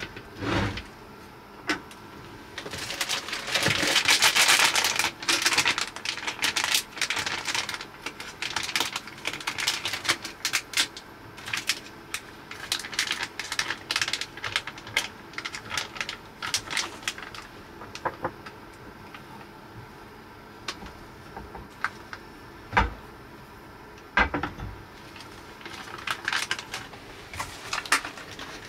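Plastic food packaging crinkling and being torn open, then dry rice grains poured into a stainless steel pot as a dense patter of small clicks. A few knocks on the wooden table follow near the end.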